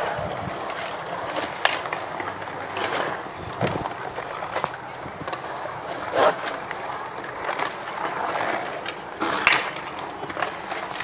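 Skateboard wheels rolling steadily on the smooth concrete of a skatepark bowl, with several sharp knocks from the board and trucks, the loudest about nine and a half seconds in.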